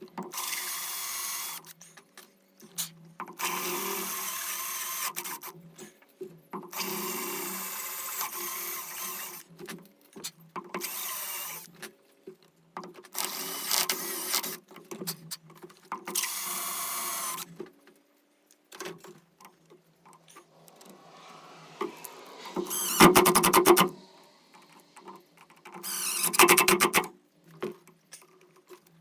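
Power drill running in repeated short bursts of one to three seconds, countersinking screw holes one after another. Near the end come two louder bursts with a rapid clicking rattle.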